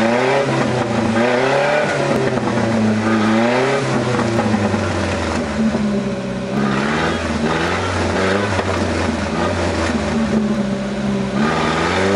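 1984 Datsun/Nissan pickup's engine revving up and falling back several times, the truck mired in mud and shallow water at the lake's edge.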